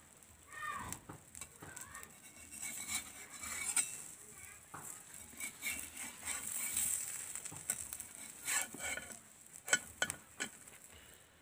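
Food sizzling in oil in a pan, with a metal spatula scraping and clinking against the pan many times. A sharp clink near the end is the loudest.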